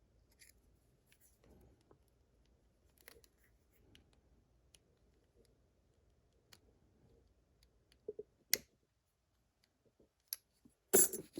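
Faint small metal clicks and scrapes of hand tools working at the hard steel retaining clip on a lock cylinder, as it resists coming off. There is a sharp click about eight and a half seconds in, and a louder short burst near the end.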